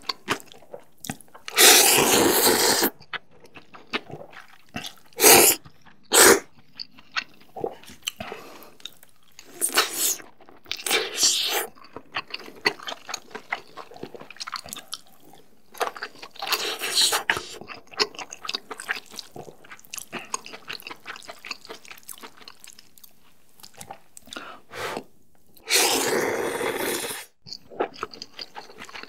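Close-miked eating of spicy ramen noodles: several long, loud noodle slurps, the first right at the start and the last near the end. Between them run steady wet chewing and mouth clicks.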